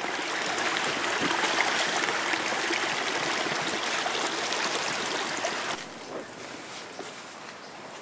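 Steady rush of running water from a stream, which drops away sharply about six seconds in.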